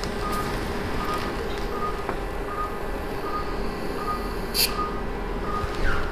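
Operating-room patient monitor beeping steadily, a short single-pitch pulse-oximeter tone about every three-quarters of a second, one beep per heartbeat, over a steady hum of theatre equipment. A brief hiss sounds a little past the middle.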